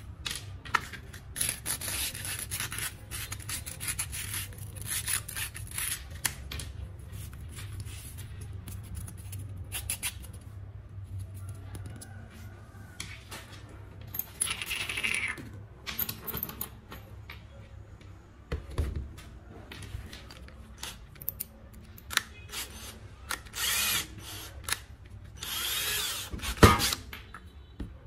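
Clicks, taps and scraping from an aluminium can end being handled and worked on a wooden table. There are several separate bursts of scraping, and a cordless drill whirs briefly near the end.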